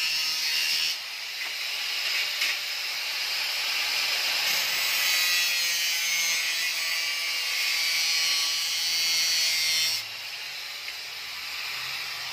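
Angle grinder with a cutting disc slicing through a flat stainless steel strip: a steady, high grinding hiss of the disc in the metal. The cut stops abruptly about ten seconds in.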